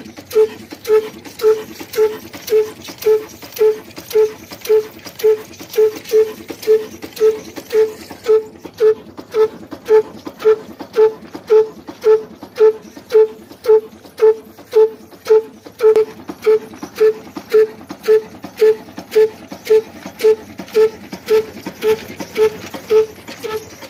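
Old Ruston Hornsby diesel engine with a heavy flywheel running steadily under load, driving a flour mill by flat belts. Its exhaust beats come about twice a second, evenly and without a miss.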